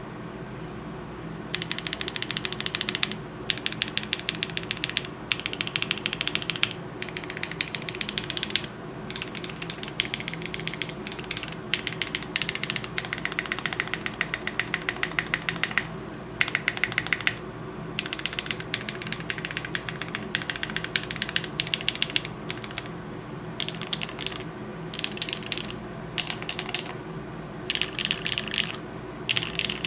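Plateless 7V custom mechanical keyboard (aluminium case, lubed Tecsee Zaku switches, GMK keycaps) being typed on: rapid key clicks in quick bursts with short pauses between, starting about a second and a half in.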